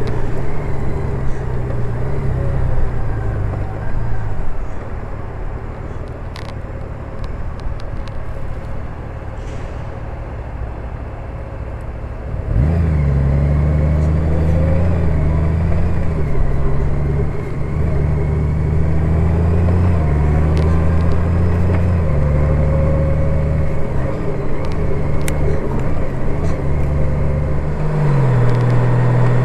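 Honda Gold Wing motorcycle under way, its engine running with wind and road noise over it. About twelve seconds in, the engine note grows suddenly louder as the bike pulls harder, then drops in pitch near the end.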